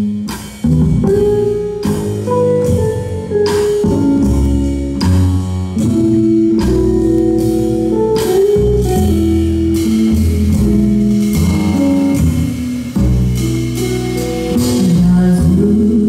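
Live jazz band playing an instrumental intro: electric guitar carrying the melody over upright double bass and drum kit, before the vocals come in.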